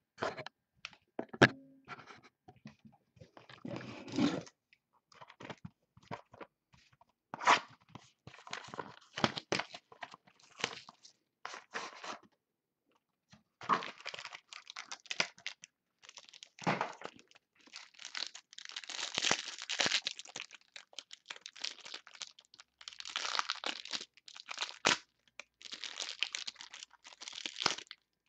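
A sealed trading-card box and its packs being torn open by hand: irregular tearing and crinkling of wrapping, with sharp clicks and handling knocks.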